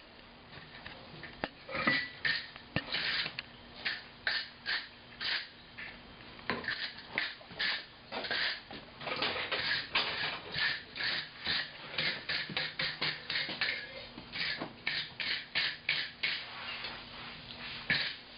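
Wire brush scrubbed back and forth over freshly forged steel, burnishing the piece: a steady run of short rasping strokes, about two to three a second.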